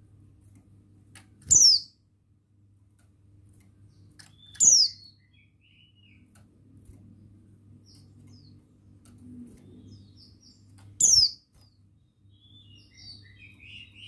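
Buxtoni white-eye (pleci) calling. Four loud, short, high calls, each sweeping sharply downward, come in twos a few seconds apart, with softer twittering chirps between them.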